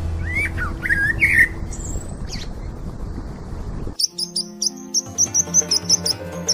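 Bird-like chirps and short gliding whistles over a steady low background. About four seconds in the sound changes abruptly to a fast run of high chirps, about four or five a second, over background music.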